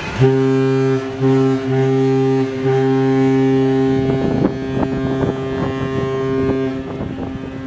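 Diamond Princess cruise ship's horn sounding one long, deep blast as it leaves port, with a few brief dips in the first two seconds; it dies away near the end.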